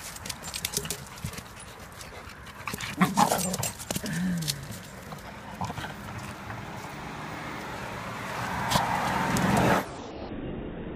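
Two dogs play-wrestling: scuffling and clicks from paws on the pavement, panting, and a short dog vocalization that falls in pitch about four seconds in. Near the end a loud rushing noise builds and cuts off suddenly.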